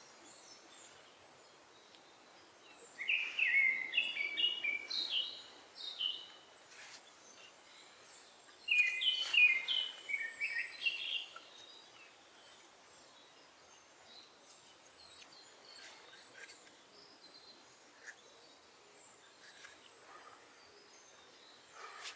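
A songbird singing in a forest: twice in the first half, a phrase of quick chirping notes tumbling downward for two to three seconds, then a long stretch of faint background with a few small clicks.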